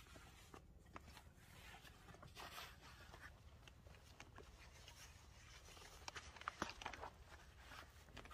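Faint rustling and clicking of a large hiking backpack being lifted and shouldered, its fabric and straps shifting, with boots scuffing on dry ground. The sharpest clicks come about two-thirds of the way through.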